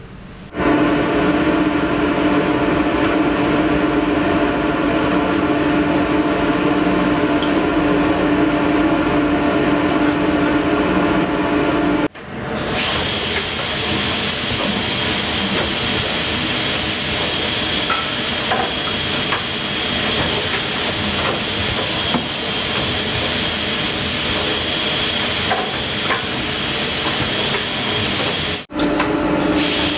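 KOCH UNIFLEX select.line CNC through-feed drilling machine running, a steady industrial hum of several tones. About twelve seconds in it changes abruptly to a loud steady rushing hiss with a high whine, typical of dust extraction and spindle motors at work, with a few faint ticks. It changes back abruptly near the end.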